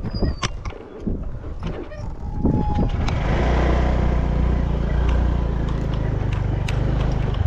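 A few clicks and knocks, then about three seconds in a small engine starts and runs steadily.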